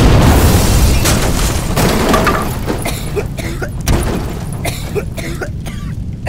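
A 500-gram consumer fireworks cake firing. A loud burst opens a dense run of booms and crackling that lasts about two and a half seconds. Sparser sharp pops and crackles follow.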